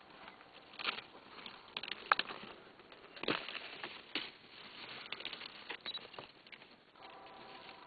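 African bush elephant feeding on dry brush, its trunk snapping and rustling twigs in a run of irregular crackles and snaps.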